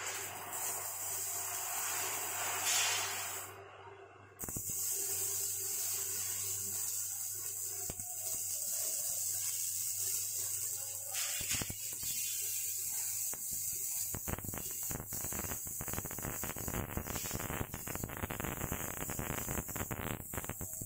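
Arc welding on steel frame parts: a steady hiss that drops out briefly about four seconds in, then a dense, rapid crackle over the last third.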